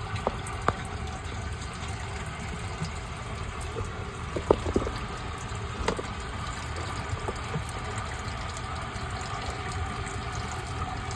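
Electric sump pump running steadily with water rushing through it, and a few light clicks and knocks. It keeps running instead of shutting off because debris under its float is holding the float switch up.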